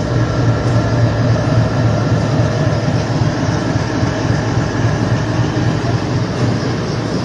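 Indian Railways WDG4G diesel-electric locomotive running steadily as it rolls past with its goods train.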